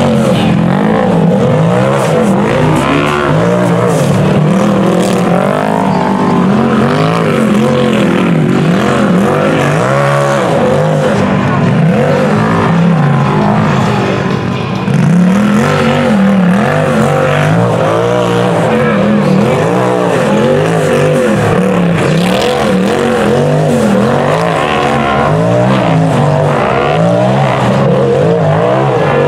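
Rock bouncer side-by-side buggy engines revving hard under load on a rocky hill climb, the pitch rising and falling over and over as the throttle is worked.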